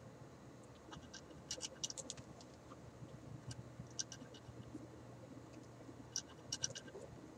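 Small, sharp clicks and scratches in a few short clusters, from test probes or clip leads tapped against the radio's wire ends and terminals while they are checked for ground. A faint low hum runs underneath.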